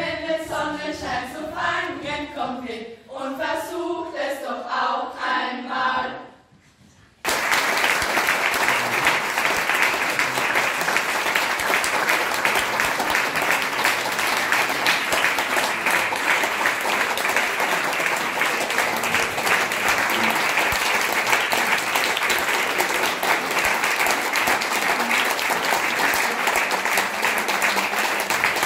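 A group of schoolchildren singing together for about six seconds, the song ending in a short pause. A seated audience then breaks into sustained applause that lasts for the remaining twenty seconds.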